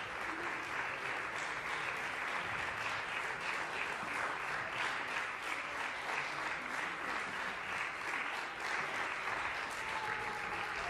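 Concert audience applauding, a steady unbroken wash of many hands clapping.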